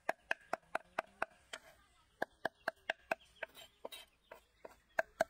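Metal cleaver chopping fast on a thick round wooden chopping block, mincing dried red chilies, at about four knocks a second, each with a short ring. The chopping slows and turns uneven for a couple of seconds in the middle, then picks up again.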